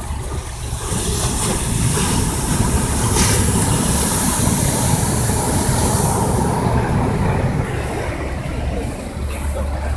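Surf breaking and washing up the beach, a hissing rush that swells about a second in and eases after six seconds, over a steady low rumble of wind buffeting the microphone.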